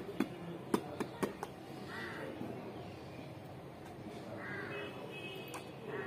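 A crow cawing three times, each caw a short harsh call, the first about two seconds in. A quick series of sharp clicks comes in the first second and a half.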